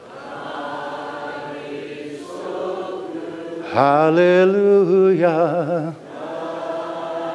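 Congregation singing a slow hymn chorus without accompaniment. About four seconds in, one man's voice with vibrato comes in much louder over the group for about two seconds, then drops back.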